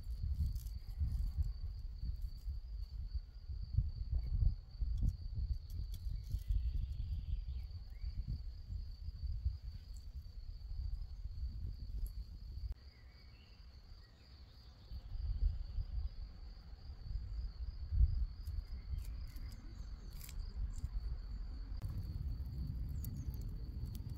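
An insect trilling steadily on one high pitch, over an uneven low rumble that drops away for a couple of seconds around the middle.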